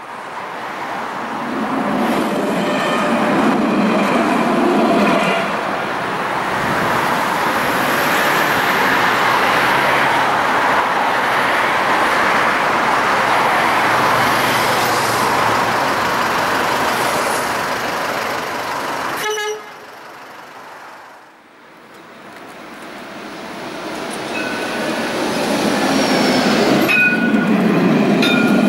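Steady loud street-traffic noise, cut off suddenly about two-thirds through. Then a modern low-floor electric tram approaches and passes close, its rumble rising, with a high whine near the end.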